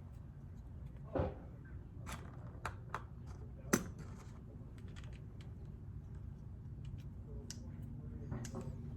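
Scattered light clicks and taps of small screws and a screwdriver being handled as the screws of an outboard carburetor's idle-circuit cover plate are started by hand. The loudest tap comes a little under four seconds in.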